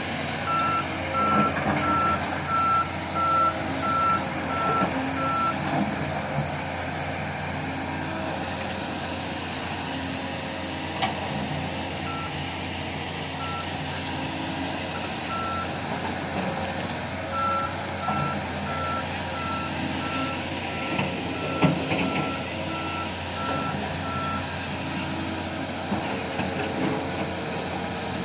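A heavy machine's reversing alarm beeping on one pitch, about two beeps a second, in two long runs, over the steady running of a diesel engine. A sharp click and a louder knock come near the middle and in the last third.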